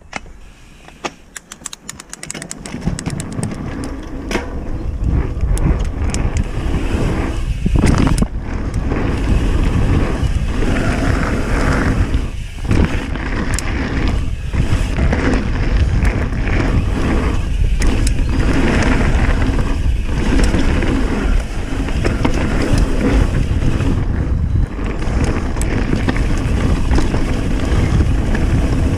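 Mountain bike riding fast down a dirt trail: wind buffeting the microphone, tyres rumbling over the ground and the bike rattling over bumps. It grows louder over the first few seconds as speed builds, then holds, with brief dips.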